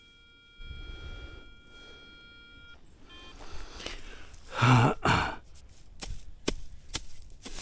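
A metal detector's steady electronic tone stops about three seconds in. It is followed by two loud scraping thuds, and then a series of sharp knocks and clicks.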